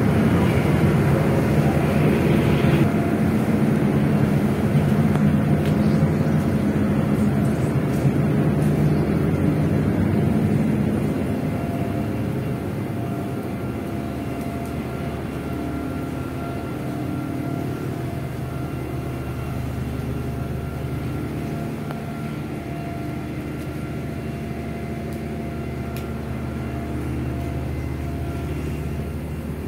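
Steady drone of a ship's engines, a low hum holding several steady tones over a wash of noise, heard from the ship's side deck; it grows somewhat quieter about eleven seconds in.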